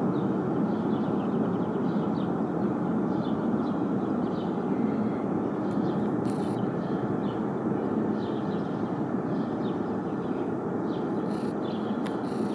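Ariane 5 rocket engine firing on a test stand, heard from a distance as a steady, unbroken roar of noise.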